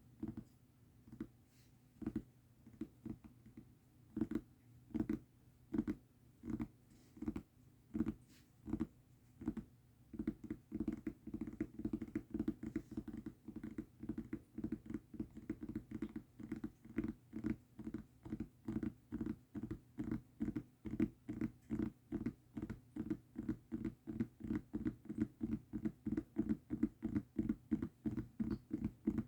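Tapping on a mousepad: short, dull taps, slow and uneven at about two a second at first, then from about a third of the way in a fast, steady run of about four taps a second.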